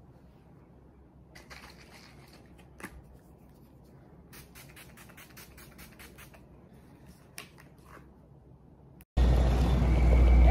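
Faint sounds of skincare, then a rapid run of about ten short hissing sprays from a face-mist pump bottle a little past four seconds in. About nine seconds in there is an abrupt switch to loud, steady outdoor noise with a low rumble, from wind and traffic.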